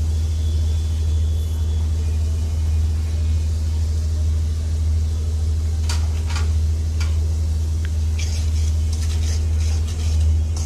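Oil with onion paste sizzling in a pan under a steady low hum. From about six seconds in come a few sharp clicks, then a run of clinks and scrapes as ground spices go into the pan and a spatula stirs them into the oil.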